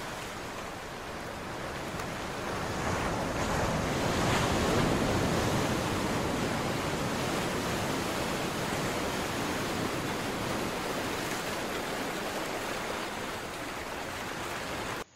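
Ocean surf sound effect playing with the racing-game animation: a steady rushing of waves that swells about four seconds in, then eases, and cuts off abruptly at the end.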